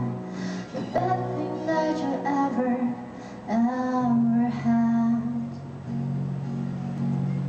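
Song with a woman singing over instrumental accompaniment; her voice drops out about five seconds in, leaving steady held low notes.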